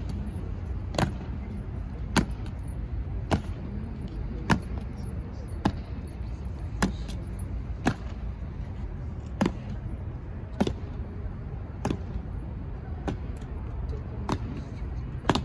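Honour guards' boots striking a granite pavement in a slow, stamping ceremonial march, one sharp footfall a little more than once a second, over a steady low rumble.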